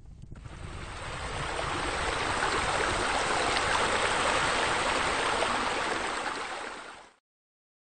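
Running, splashing water from a pool's spa spillover pouring into the pool: a steady rush that swells over the first couple of seconds and cuts off suddenly about seven seconds in.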